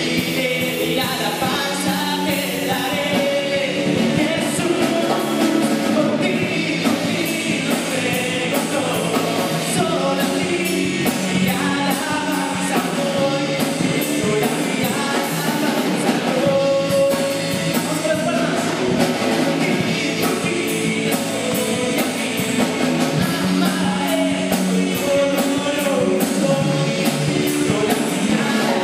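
Live rock band playing a Christian song: a man sings into a microphone over drum kit, electric bass and electric guitar.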